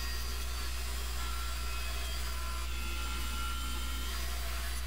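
Bandsaw running with a steady hum, its blade cutting through a cedar mold to free a cast resin blank.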